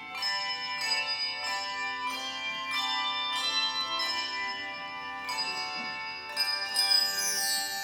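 Handbell choir playing a piece: struck handbells ringing in chords about twice a second, each note ringing on under the next. Near the end a quick run of high tinkling notes sweeps downward.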